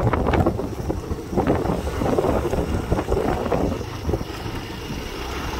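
Wind rushing over the microphone on a moving motorcycle, with the low rumble of the bike riding over a rough road and a few knocks, easing off slightly near the end.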